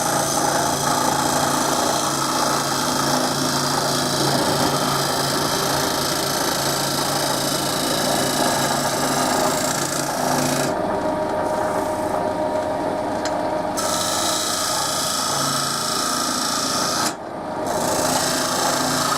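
Wood lathe running with a turning tool scraping at the rim of a wooden cup: a rasping cut over the steady hum of the motor. The cutting eases off for a few seconds past the middle, and again briefly near the end.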